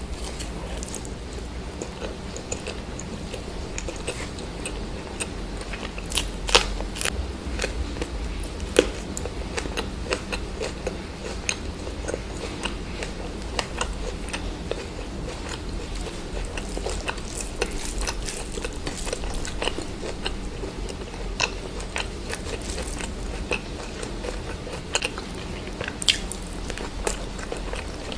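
A person chewing and biting into food, with wet chewing and frequent short crunches; the sharpest crunches come about six and a half and nine seconds in.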